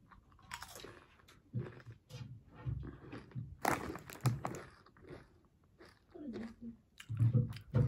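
Someone crunching and chewing Lay's potato chips, in sharp, irregular crunches.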